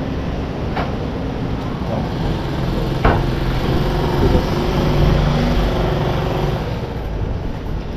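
Steady engine and road noise of a moving motor vehicle, heard on board, with a sharp click about three seconds in and a humming engine note that swells for a few seconds in the middle.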